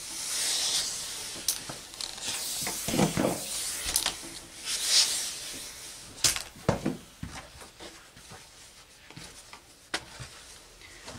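Steam iron hissing in two bursts of steam, one at the start and one about five seconds in, as it is pressed and slid over fabric, with a few sharp knocks of the iron set down on the table. Quieter rustling of the fabric being handled follows.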